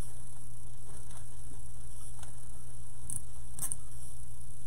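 Steady electrical mains hum, with a few faint clicks and light rustles as a ribbon bow and its zip tie are handled. The strongest click comes about three and a half seconds in.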